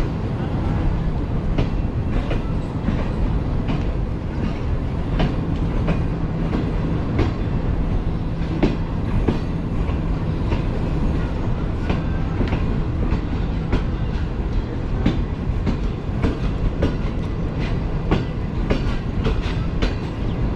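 Passenger train running on the track with a steady rumble, its wheels clicking irregularly over rail joints, under CRRC passenger coaches.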